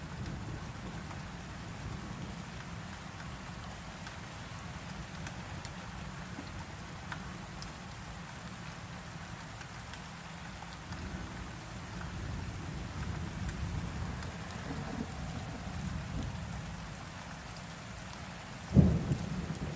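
Steady rain with a low rumble underneath, and one sudden loud low boom near the end.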